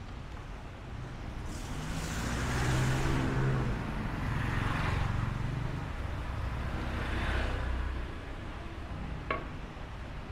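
Street traffic, with motor vehicles passing close by. Engine noise swells about two seconds in, comes in several waves and fades near the end. A single sharp click follows shortly before the end.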